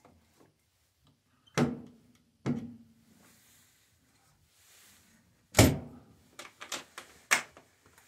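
Cabin door being handled: two knocks, then a loud thump as the door is shut, followed by a quick run of clicks as its latch is worked.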